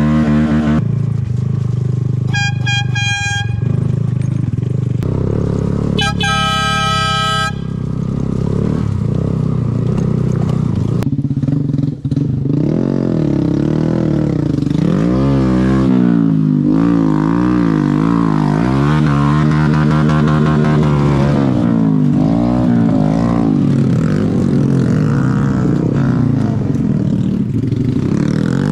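Honda Grom minibike engines running, with two short horn toots a few seconds in. From about twelve seconds in, an engine revs up and down repeatedly.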